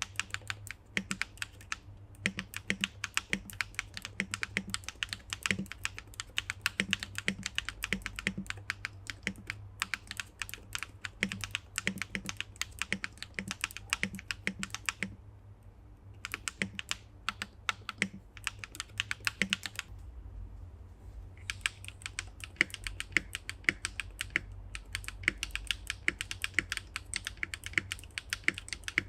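Typing on a Swagkeys Eave65 mechanical keyboard with BSUN RGY switches, a polycarbonate plate, no foam and ABS keycaps: quick runs of sharp keystroke clacks, with short pauses about ten, fifteen and twenty seconds in.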